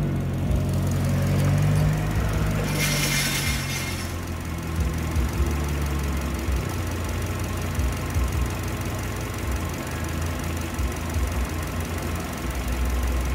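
2012 Subaru Liberty's 2.5-litre petrol flat-four engine running steadily. A brief hiss comes about three seconds in.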